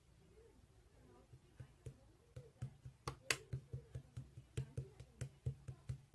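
Slime being squeezed and poked by hand, giving a quick run of sharp popping clicks, about four a second, that starts about a second and a half in.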